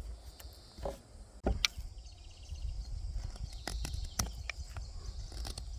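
Kizer Bugai knife carving a hard pine stake: a few separate, irregular sharp cuts and scrapes of the blade biting into the wood.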